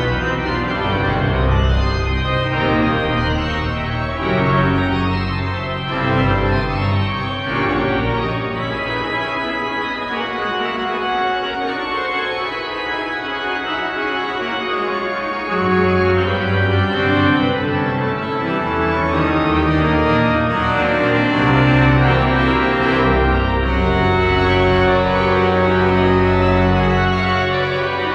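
Pipe organ playing full, loud chords over deep pedal bass notes that come and go, swelling louder in the second half, in a large stone cathedral.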